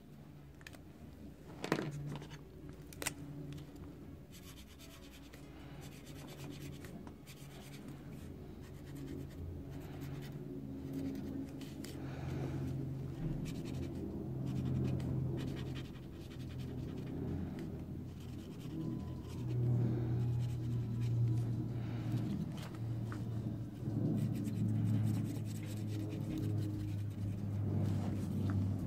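Felt-tip marker and then coloured pencil scratching in short strokes on folded paper, growing louder partway through. Two sharp clicks sound near the start.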